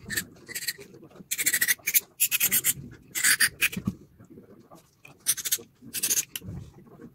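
Aerosol cleaner sprayed through a straw nozzle into the holes of a chainsaw carburetor, in about six short hissing bursts of roughly half a second each, with small handling noises between them.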